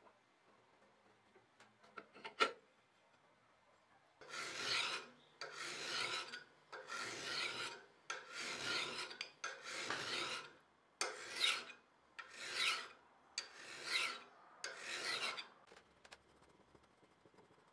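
Hand file drawn across a steel knife blade clamped in a vise, about nine long rasping strokes at a steady, unhurried pace, after one sharp knock.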